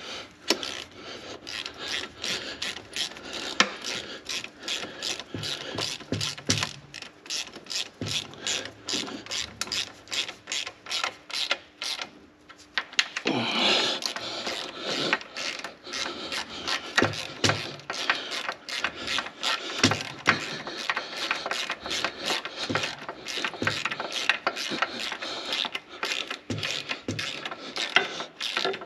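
Hand ratchet wrench clicking steadily as new bolts are run in on an engine's aftercooler housing. The clicking pauses once about twelve seconds in, then starts again.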